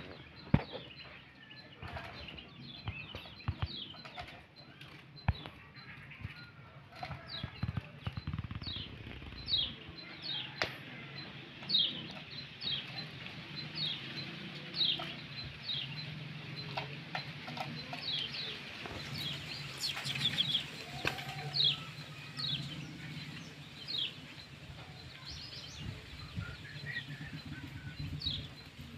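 Small white-eyes (kecial kuning) giving short, high chirps that drop in pitch, repeated about once a second, with a few sharp clicks between them.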